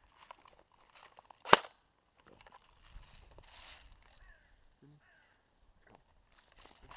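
A single sharp shot from an airsoft gun about one and a half seconds in, followed by faint rustling.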